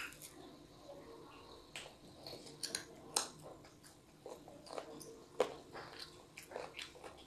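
A small child eating rice and chicken curry with a spoon: chewing and mouth smacks, heard as irregular short, sharp clicks.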